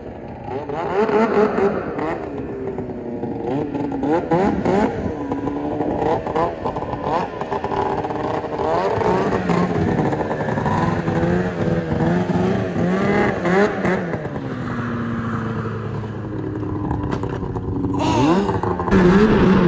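Snowmobile's 700 engine revving up and down over and over, its pitch wavering quickly, then rising to a louder, steadier run near the end.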